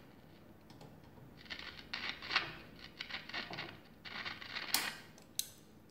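Rustling and scraping of things being handled on a workbench, a quick irregular run of noises, then two sharp clicks near the end.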